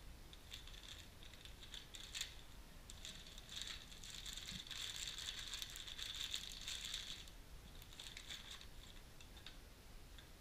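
Clear plastic parts bag crinkling in the hands for several seconds in the middle, with scattered light clicks and taps of parts and packaging around it.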